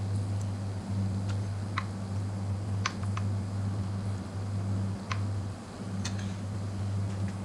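Metal spoon clicking against a glass dish about six times, scattered and irregular, while spreading melted milk chocolate, over a steady low hum.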